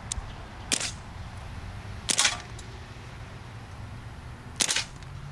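Sig Sauer P226 X-Five CO2 BB pistol firing three shots, each a sharp pop, the first two about a second and a half apart and the third about two and a half seconds later.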